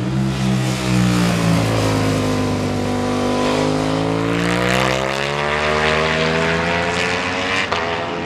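Ducati Panigale V4 superbike's V4 engine running at low revs, then revs climbing steadily for several seconds as the bike accelerates. A sharp crack near the end marks a gear change.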